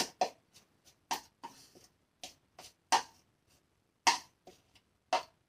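A kitchen utensil scraping pancake batter out of a bowl into a frying pan: a series of short, irregular taps and clicks against the bowl, with a brief scrape about a second and a half in.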